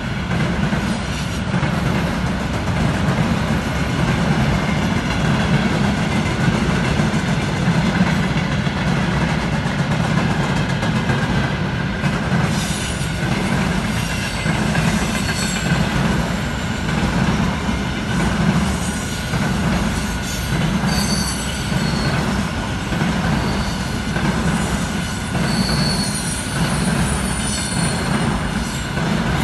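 Long container freight train rolling past: a steady rumble and clatter of the wagons' wheels on the rails. Short high-pitched wheel squeals come in from about halfway through.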